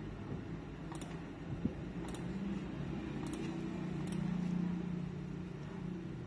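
Computer mouse clicking four times, roughly a second apart, over a steady low hum.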